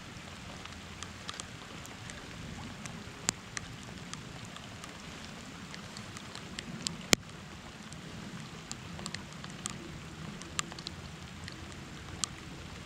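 Light rain falling, a steady hiss with scattered sharp ticks of drops striking close by, one much sharper tick about seven seconds in.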